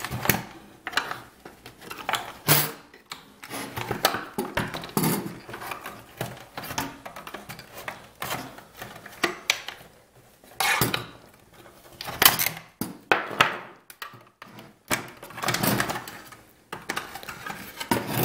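Hard plastic housing of a Black+Decker hedge trimmer being handled and pried apart with a flathead screwdriver: irregular clicks, knocks and rattles, a few of them sharper and louder.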